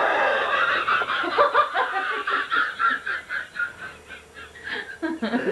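A person laughing hard in a long run of quick pulses that grow steadily fainter.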